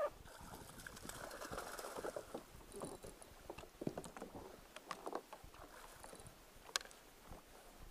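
Faint splashing and flapping of a seabird tangled in fishing line on the water beside a kayak, with scattered short clicks and splashes.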